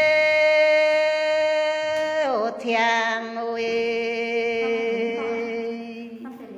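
A singer holding a long drawn-out note in Red Dao lượn folk song, sliding down to a lower held note about two seconds in, which wavers slightly and fades near the end.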